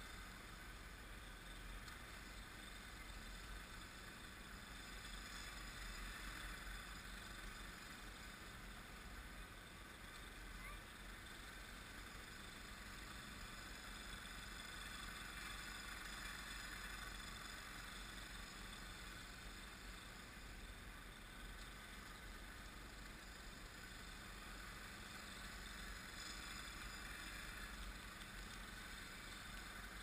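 Faint, steady drone of a distant engine running, swelling and fading slowly every several seconds.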